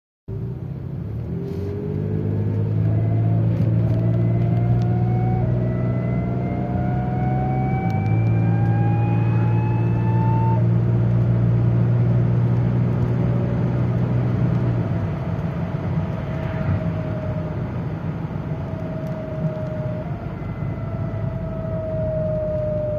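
BMW E39 528i's 2.8-litre straight-six running under load while a high whine rises steadily in pitch. Partway through, the engine note drops away and the whine carries on, slowly falling in pitch.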